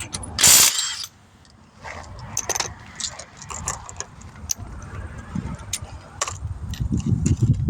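Hand tools working on the wheel: a ratchet wrench and metal parts clicking and clinking irregularly, after a short loud rush about half a second in. A low rumble builds near the end.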